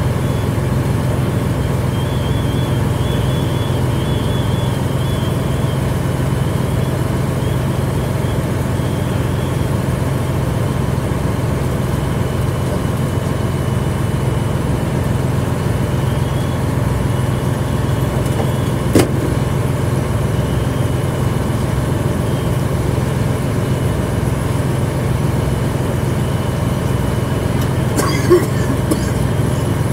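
Fire engine running steadily while pumping water through charged hose lines, a constant low engine hum. A single sharp click about two-thirds of the way in, and a brief higher sound near the end.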